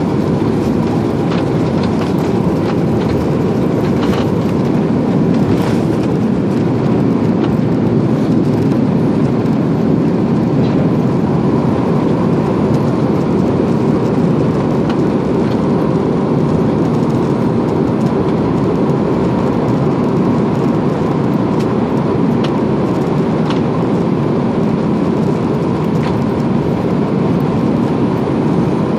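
Airbus A330's twin turbofan engines at takeoff thrust, heard inside the cabin through takeoff and the first climb: a steady, deep roar with a faint steady whine above it. A few faint knocks come in the first seconds.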